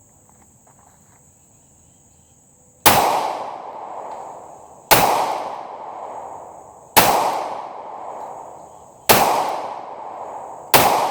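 Glock 27 subcompact .40 S&W pistol firing five shots about two seconds apart, starting about three seconds in, each shot trailing off in a ringing tail about a second long.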